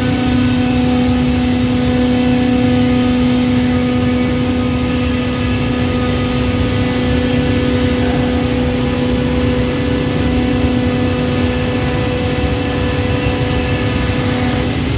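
CNC automatic scroll saw running with a steady hum.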